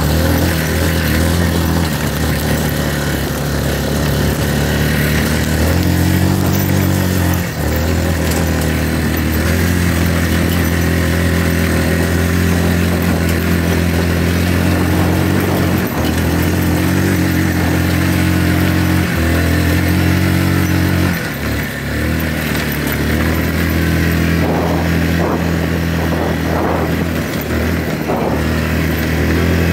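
ATV engine running under way, its note rising and falling every few seconds as the throttle is worked on a climbing dirt trail, with a brief drop-off about two-thirds of the way through.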